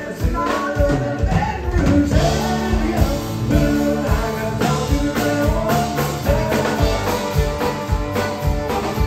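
Live country band playing: a steady drum-kit beat and acoustic guitar, with vocals over the band.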